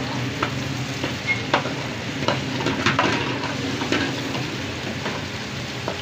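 Chicken frying in a pan for shahi daal, sizzling steadily while a metal spatula stirs it, with sharp irregular clinks as the spatula strikes the pan.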